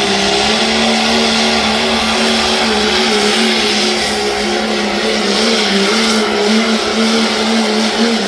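1996 Dodge diesel pulling truck's engine running flat out under load, dragging the sled. Its note holds steady with small wavers in pitch, after a slight drop at the start.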